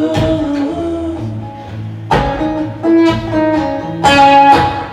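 Guitar strummed in chords: four chords struck and left to ring, the last one about four seconds in the loudest.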